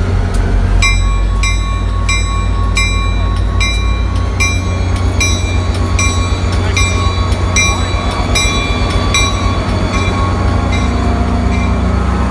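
Diesel locomotive's engine running with a steady low drone while its bell rings in an even rhythm, a bit under two strokes a second, starting about a second in and stopping shortly before the end.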